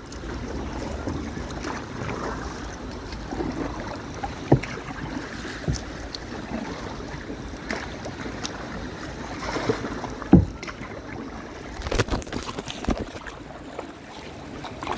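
Kayak paddles dipping and splashing through choppy sea water, with a few sharp knocks along the way and wind on the microphone.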